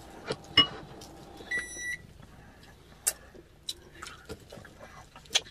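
Eating at a table: scattered sharp clicks and knocks, the loudest about half a second in. Shortly before two seconds in there is one electronic beep of about half a second.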